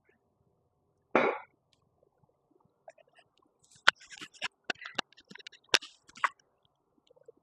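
Handling noise: a short rustle about a second in, then a run of sharp clicks and crackling rustles over about two and a half seconds in the second half.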